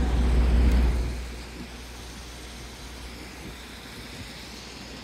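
Outdoor street traffic noise: a heavy low rumble for about the first second, then dropping to a quieter, steady city background hum.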